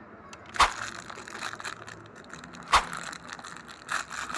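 Clear plastic packaging bag crinkling and crackling as it is handled, with two loud sharp cracks, about half a second in and near the three-quarter mark, and a smaller one near the end.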